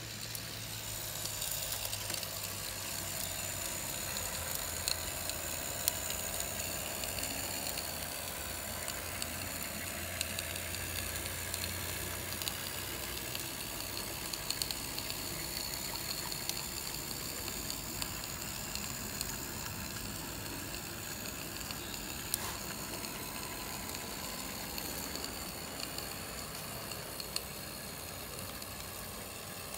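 Small 16 mm scale live-steam locomotive with a vertical boiler running along the track, giving a steady hiss of steam with a few faint clicks.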